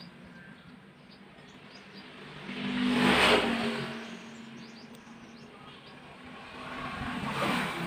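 Motor vehicles passing by, each a rushing noise that swells and fades, one peaking about three seconds in and another near the end, over a faint steady hum.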